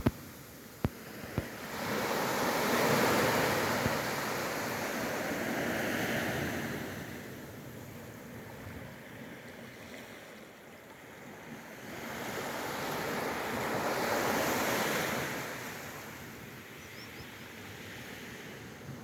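Sea waves washing onto the shore, the surf swelling and fading in two slow surges. A few sharp clicks come in the first second and a half.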